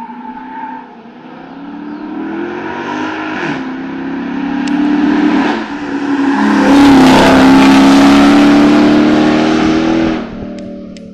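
Hill-climb race car engine under hard acceleration, revs rising with two brief dips at gear changes, about a third and about halfway in. It then holds loudest and steady as the car passes close, and the sound drops away abruptly near the end.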